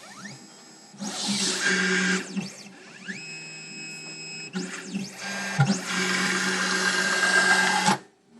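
3D Pro Xtreme key machine's motors driving the tracer through its calibration touch-offs: several separate runs of motor whine, each rising in pitch as it starts. It stops abruptly near the end.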